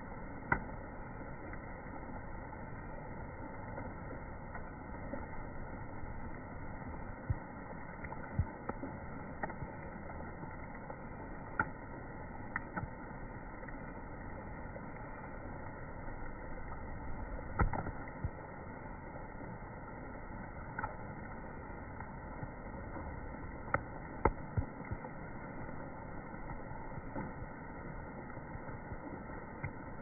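Steady rush of flowing river water, with scattered sharp clicks over it.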